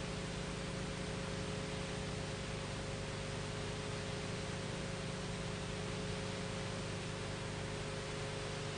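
Steady hiss with a low hum beneath it and a couple of faint steady tones: the background noise of an old analogue recording, with no strikes, footfalls or other events standing out.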